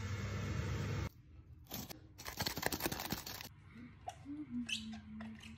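Electric blender running as it grinds blanched bathua leaves and cumin seeds into a coarse paste, cutting off abruptly about a second in. Then a couple of seconds of scraping and clatter as the paste is worked out of the steel blender jar.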